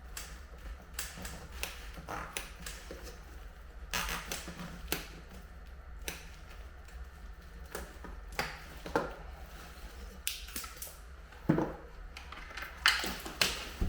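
Irregular crinkling and clicking of flexible duct insulation and its plastic jacket being handled and pulled over a taped duct joint.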